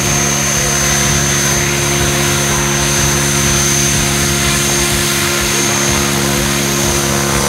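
Mikado Logo 700 Xxtreme electric RC helicopter flying low, its motor and main rotor running at a steady pitch, with a high steady whine over the rotor noise.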